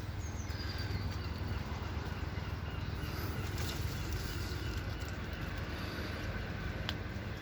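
Steady outdoor background noise, heaviest in the low end, with a few faint high bird chirps near the start.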